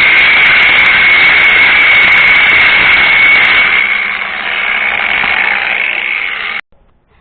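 Cordless 18 V angle grinder, a Makita-style knockoff, running with a steady high whine, a little quieter after about four seconds, then cut off suddenly.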